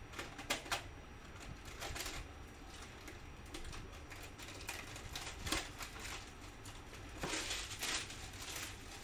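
Intermittent clicks and light knocks of hard objects being handled, with a few short scraping noises and a longer rustling scrape near the end.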